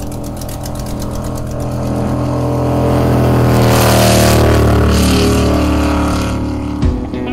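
Classic powerboat engine running at speed as the boat passes, growing louder to a peak about halfway and then fading.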